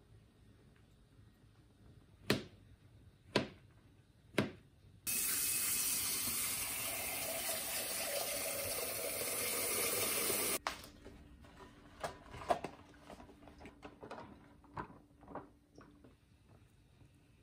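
Kitchen tap running into a glass bowl for about five seconds, then shut off abruptly. Before it come three sharp knocks about a second apart. After it come small splashes and taps as hands move a sheet of rice paper around in the water.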